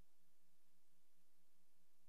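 Near silence: faint steady hiss and low hum of an empty soundtrack.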